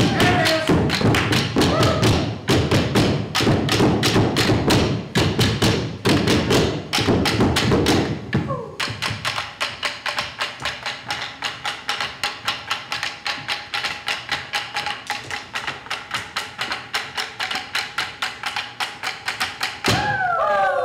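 Percussion ensemble beating out a rhythm with long hand-held sticks. A loud, dense pattern of heavy strikes gives way about eight seconds in to lighter, evenly spaced taps at about four a second.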